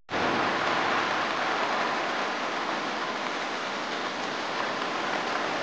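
Heavy rain pouring steadily onto a wet paved street, an even hiss with no breaks.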